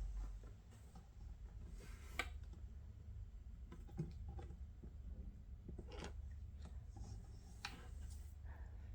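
Small handling noises: a few sharp clicks and taps with light rubbing, over a steady low hum.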